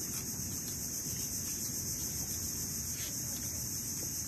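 Steady, high-pitched chorus of insects, with a low rumble beneath it and a faint click about three seconds in.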